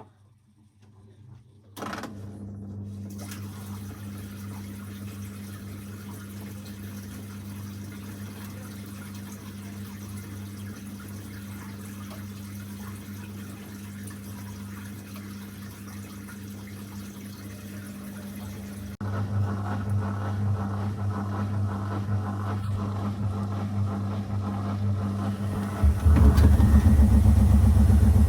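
Zanussi FL984CN washing machine's motor starting about two seconds in and turning the drum with a steady hum. The hum steps up in speed and loudness twice, once near 19 seconds and again just before the end, as the machine ramps up its spin.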